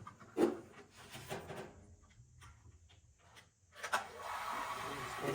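Knocks and rubbing of parts being handled, then a click about four seconds in and a small electric motor starting up and running with a steady hum.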